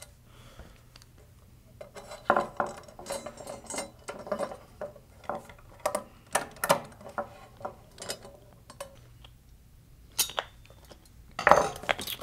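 Light metallic clinks and knocks of aluminum robot-chassis channel, brackets and small socket-head screws being handled and fastened with a hex key. The taps are irregular and scattered, with a louder clatter near the end.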